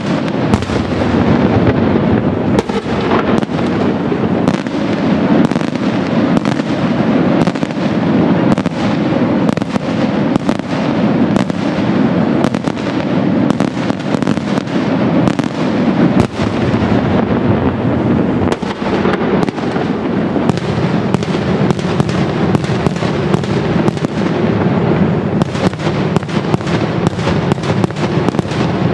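Daytime aerial fireworks: a dense, unbroken barrage of small salute bangs from shells bursting into clusters of smoke puffs, the reports coming too fast to count.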